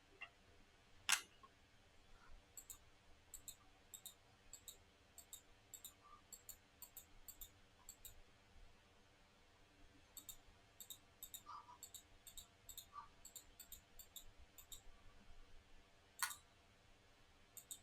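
Near silence with runs of faint, light clicks, two to four a second, and two louder single clicks, one about a second in and one near the end.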